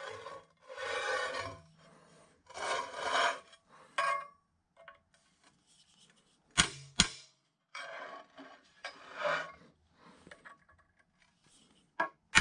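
A ball-peen hammer tapping a steel punch to deepen punch marks in a steel plate: a few sharp metallic strikes, two of them in quick succession about midway. Between the strikes come stretches of scraping and rubbing of metal on metal.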